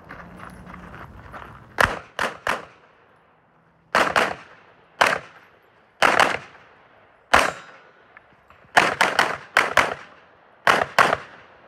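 Pistol-caliber carbine shots fired in quick pairs and short strings, about fifteen in all, each with a short echo.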